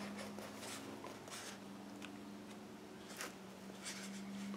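Quiet room tone with a steady low electrical-sounding hum, and a few soft brief rustles scattered through, like a book being handled.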